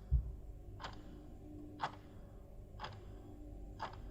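Clock ticking, about one tick a second.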